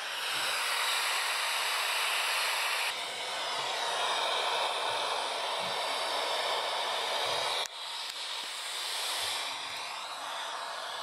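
Steady static hiss from a Sony Watchman pocket TV's speaker, the set picking up no clear signal. The hiss changes character abruptly about three seconds in and again near eight seconds, with faint low knocks as the set is handled.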